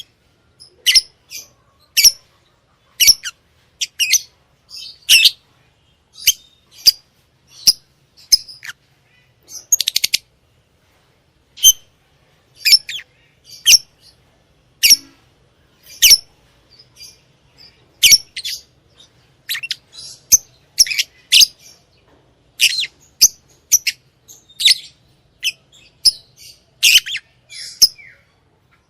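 Lovebirds calling in short, high-pitched chirps, roughly one or two a second, with a quick run of chirps about ten seconds in.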